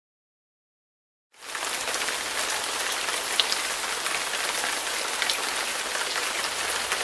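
Silence, then about a second and a half in, steady rain begins pattering, with scattered sharper drop ticks.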